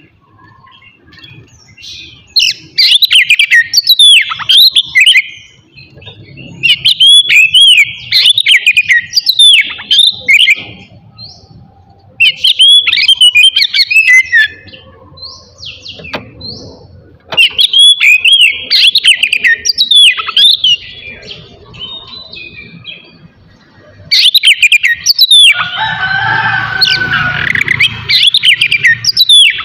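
Oriental magpie-robin (kacer) singing loud, varied bouts of sharp whistles and sweeping notes, about five bouts separated by short pauses. Near the end a harsher, lower call overlaps the song.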